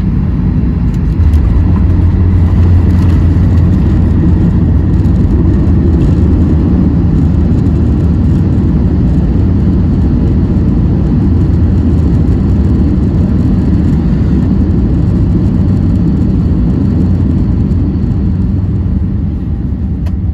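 Inside the cabin of a Boeing 737-900ER landing: a deep rumble steps up about a second in at touchdown and stays loud as the jet slows on the runway with its spoilers raised, then eases off near the end.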